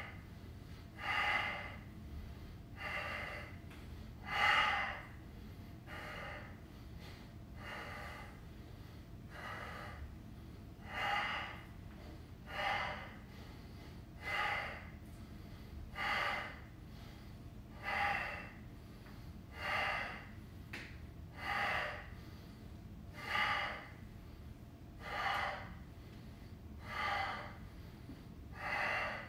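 A man breathing hard through his mouth under exertion during a weighted dead bug core exercise: a forceful breath roughly every two seconds in a steady rhythm.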